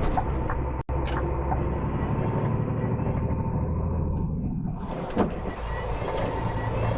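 Lorry engine running steadily, heard from inside the cab, with a single sharp knock about five seconds in.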